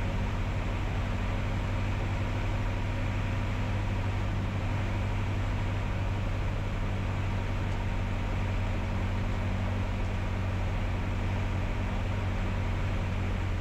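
Single-engine piston light airplane's engine and propeller throttled back for landing: a steady low drone heard from inside the cockpit, unchanging as the plane flares and rolls out on the runway.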